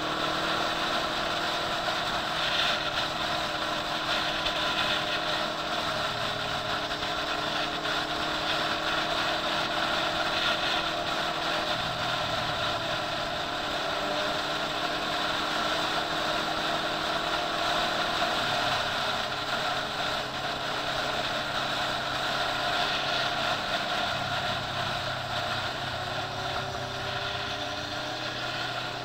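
Motorcycle engine running at cruising speed with steady wind and road noise, its pitch shifting every few seconds and rising near the end.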